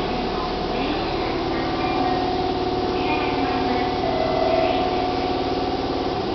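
A public-address announcement echoing through an underground station platform, over the steady hum of a standing electric train.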